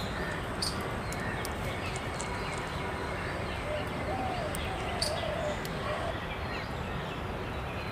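Steady outdoor background noise with a few faint bird calls and one or two sharp clicks.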